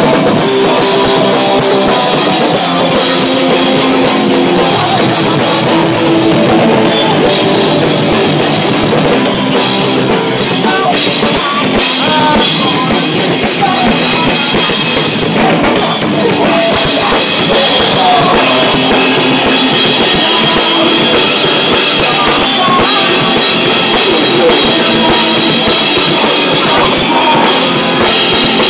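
Live rock band playing loud, heard close up: electric bass, electric guitar and a drum kit with cymbals, going steadily without a break.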